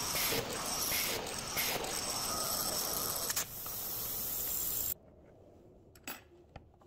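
Slot-mortising machine's cutter milling a mortise in oak, a loud steady running noise with a rhythmic pulse about twice a second as the cutter sweeps back and forth. The noise cuts off suddenly about five seconds in, leaving a couple of faint clicks.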